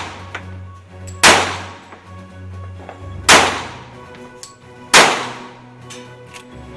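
Three single shots from a Springfield .45 ACP pistol, about two seconds apart, each followed by a ringing tail that fades over most of a second.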